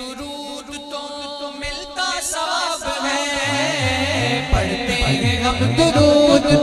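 Male naat reciter singing a darood naat into a microphone, backed by a group of male singers. The singing grows louder about two seconds in, and a low, repeating backing comes in about halfway.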